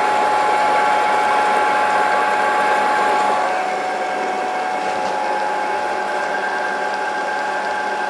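Milling machine running, its end mill cutting a long slot into a metal plate: a steady whine over a dense rattling cutting noise. About three and a half seconds in it becomes a little quieter and the whine drops slightly lower.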